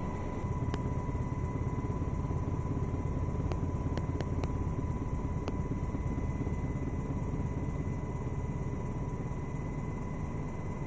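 Helicopter in flight, heard from on board: a steady low rumble of engine and rotor, with a thin steady whine above it and a few faint clicks about halfway through.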